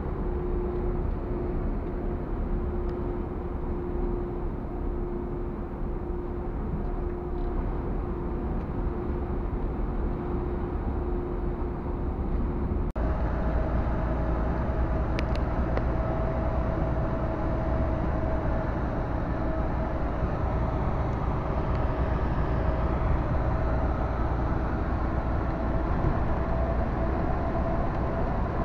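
Truck driving: steady engine and road rumble with a constant whine. About halfway through the sound changes suddenly, becoming a louder rumble with a higher whine.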